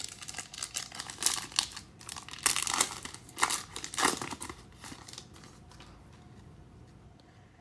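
Crinkling and tearing of a trading-card pack wrapper being handled and opened: a dense crackle for about five seconds, loudest in the middle, then dying away.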